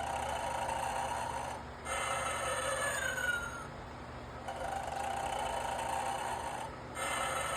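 Gemmy animated Snoring Santa figure playing its recorded snore. A raspy snore is followed by a whistling breath out that falls in pitch, and the cycle repeats about every five seconds.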